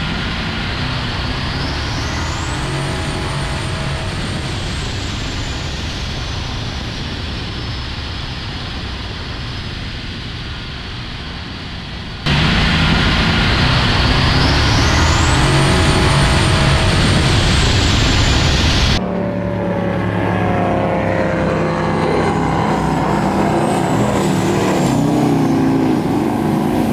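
Twin-turbocharged Ford 302 V8 jet boat running hard at speed, with a high whine that rises, holds and slowly falls. The sound changes abruptly twice, about 12 and 19 seconds in, as separate runs are spliced together, and it is loudest in the middle run.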